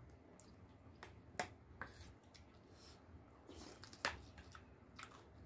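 Quiet eating sounds, with a few sharp clicks and smacks, the loudest about a second and a half in and again about four seconds in.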